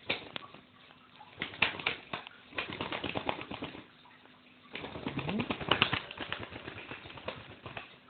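Alexandrine parakeet flapping its wings hard while gripping a perch: a rapid fluttering of feathers in three or four bouts with short pauses between.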